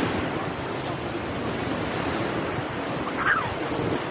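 Steady rush of wind over the phone's microphone mixed with surf on the beach below, with a brief voice sound about three seconds in.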